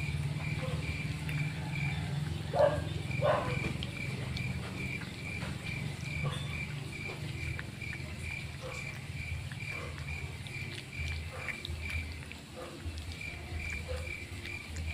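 An insect chirping rhythmically, about three chirps a second, with brief pauses, over a steady low hum. Faint clicks of puppies eating from a metal plate, and two short louder sounds about two and a half seconds in.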